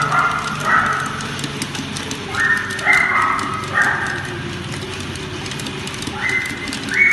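Dog treadmill running with a steady hum while a corgi's paws patter on the moving belt. A higher, flat tone sounds in short stretches a few times over it.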